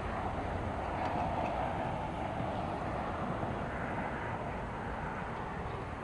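Distant road traffic, a steady hum that swells slightly about a second in as a vehicle passes.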